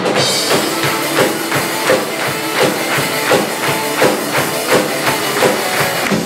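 Live rock band playing an instrumental passage: electric guitar over a drum kit keeping a steady beat of about three hits a second.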